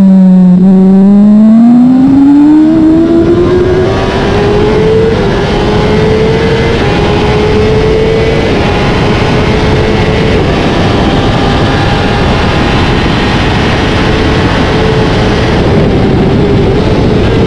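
2021 Kawasaki ZX-10R's inline-four engine at full throttle out of a corner, its pitch climbing steeply, then holding high with brief dips at each of four quick upshifts from second to sixth gear. Wind rush on the onboard microphone grows loud as speed builds toward 290 km/h.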